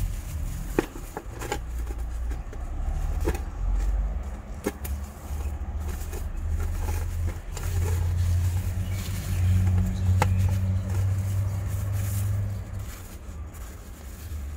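Steady low rumble, with scattered light clicks and taps from plant pots and packaging being handled while a succulent is unwrapped.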